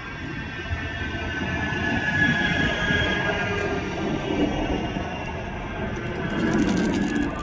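Bombardier M5000 tram pulling into the platform and passing close by: a low wheel-on-rail rumble with a steady high electric whine over it, growing louder about two seconds in.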